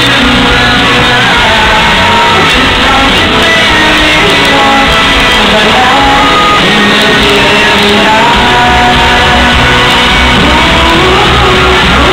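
Country band playing a rock song live in an arena: a lead singer over drums and electric guitars, with shouts from the crowd, heard loud from among the audience with the hall's echo.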